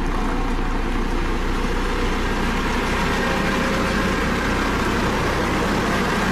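Diesel engine of a Dynapac CC522 tandem asphalt roller running steadily as the roller travels over fresh asphalt, an even, unchanging engine drone.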